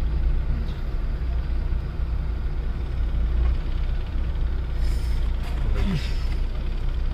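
Steady low rumble of a moving vehicle, road and engine noise, with a brief voice about six seconds in.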